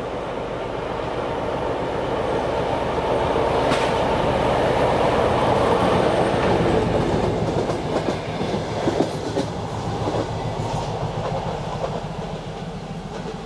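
M62 diesel locomotive's two-stroke diesel engine running as it approaches and passes, loudest about six seconds in. Then a string of passenger coaches follows, their wheels clicking over rail joints, and the sound fades as the train draws away.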